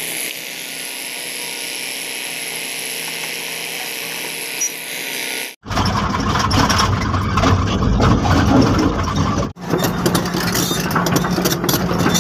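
Heavy diesel engine of a crawler excavator running steadily as it digs and loads rock. After a sudden cut about five and a half seconds in, a louder, closer heavy diesel engine runs with frequent rattling and clanking.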